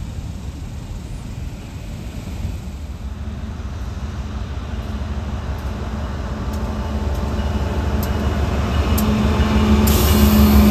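Freight train approaching: a low rumble that grows steadily louder, with a steady engine hum swelling near the end and sharp clicks about once a second from about halfway in.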